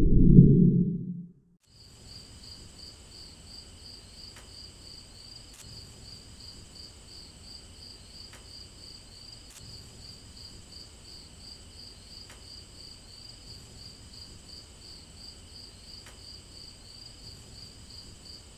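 A deep boom at the very start, lasting about a second and a half, then a steady chorus of crickets chirping in a rapid, even pulse.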